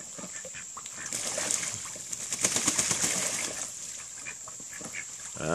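Khaki Campbell ducks splashing and flapping in a shallow plastic pool of water: a quick run of small splashes and water patter, heaviest in the middle.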